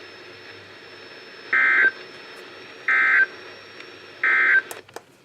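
Three short, buzzy data bursts from a NOAA Weather Radio, each about a third of a second long and about a second and a half apart. This is the Emergency Alert System end-of-message (NNNN) code that closes a warning broadcast. A few sharp clicks follow near the end.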